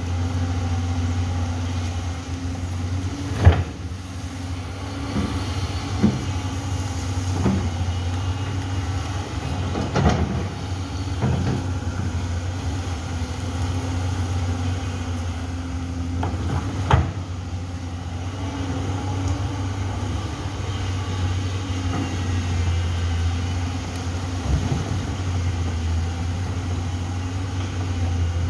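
Amphibious excavator's diesel engine running steadily at a low hum, with a few sharp knocks and clanks from the machine as it works.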